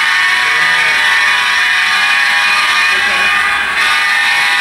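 Two HO-scale model diesel locomotives hauling a freight train of covered hoppers past close by: a loud, steady mechanical running hum.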